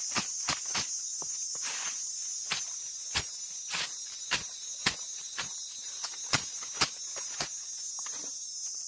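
Steady high-pitched insect chorus with a string of sharp, irregular knocks or taps, a couple a second at first and thinning out near the end; no chainsaw running.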